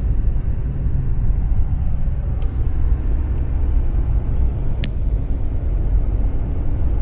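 Car driving along a road, heard from inside the cabin: a steady low rumble of tyres and engine, with one brief sharp tick near the end.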